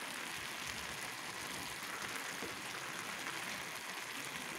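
Food sizzling in a hot pot on the stove: a steady crackling hiss that cuts off suddenly at the end.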